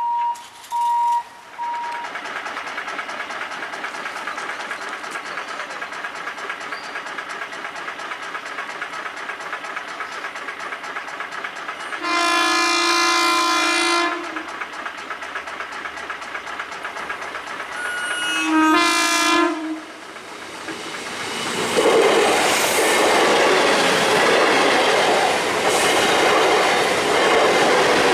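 Electric train at a level crossing sounding two long horn blasts, about six seconds apart, then rushing past loudly with wheel clatter on the rails. Two short beeps sound at the very start.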